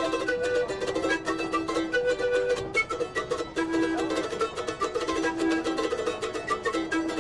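Background music of quickly plucked string instruments, with a busy run of notes over held lower tones.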